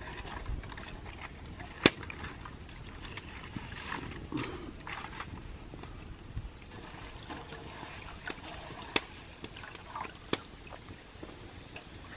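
Small wood fire crackling, with a few sharp pops (the loudest about two seconds in and again about nine seconds in), over light water sloshing in a metal basin and a faint steady high hiss.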